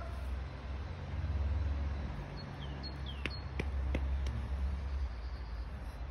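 Outdoor ambience: a steady low rumble with a few faint, short bird chirps, and three sharp clicks a little past the middle.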